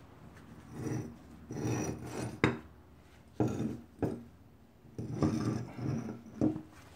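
Heavy Nissan S14 steering knuckles with wheel hubs being shifted and set down on a concrete floor: a run of short scraping, rubbing sounds broken by three sharp metal knocks.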